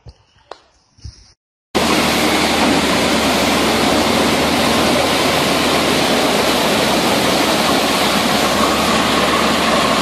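Muddy floodwater rushing in a fast river torrent around a stranded van, a loud, steady rush that cuts in suddenly about two seconds in after a moment of near silence.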